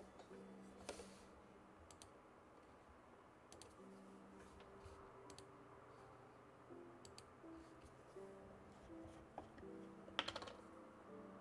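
Faint background music of held notes that change pitch in steps, with scattered small clicks and a short cluster of sharper ticks near the end.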